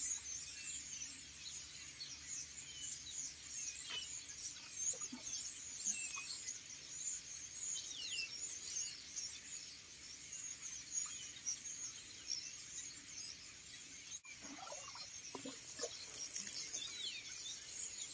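Wild songbirds chirping and singing with many short, quick calls. In the second half, the soft hiss and patter of water sprinkling from a watering can's rose onto bare soil joins in.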